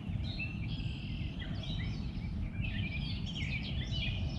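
Several birds chirping and calling, many short, quick chirps overlapping, over a steady low rumble.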